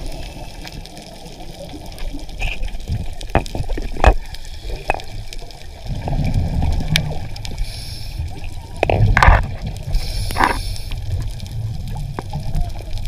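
Underwater sound of water around a diver's camera: a low rumbling water noise with scattered clicks, and two louder rushing bursts about nine and ten and a half seconds in.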